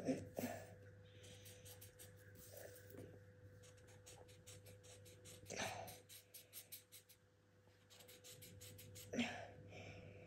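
Felt-tip marker scratching across paper in short strokes as a child draws, faint and steady. A few short, louder sounds stand out near the start, about halfway and near the end.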